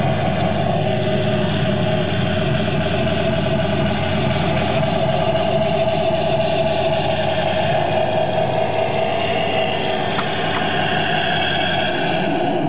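Simulated engine idle from the sound unit of a radio-controlled scale model Tiger I tank, running steadily with no change in pitch.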